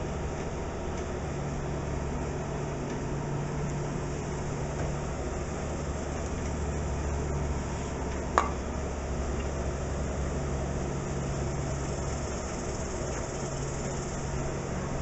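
Steady low mechanical hum, like a fan or air-conditioning unit, with one sharp click a little past halfway through.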